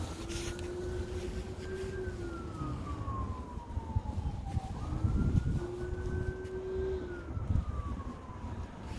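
A siren wailing: its pitch climbs slowly, sinks slowly, then jumps back up and repeats, twice, over a low rumble.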